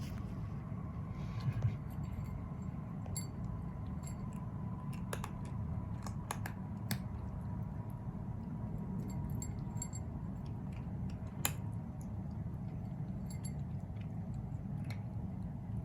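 A small pet eating, with scattered crisp clicks and crunches of its bites over a steady low room hum.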